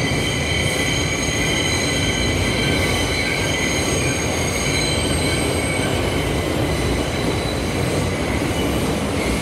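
Interior running noise of an R160B Siemens subway car in motion: a loud, steady rumble of wheels on track, with a steady high-pitched whine over it that fades slightly about halfway through.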